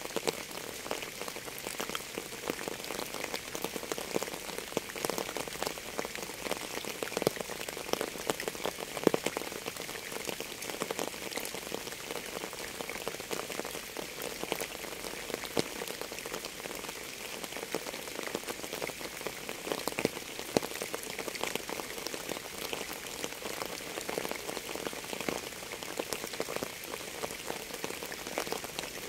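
Steady rain falling: a continuous hiss thick with many separate drop hits.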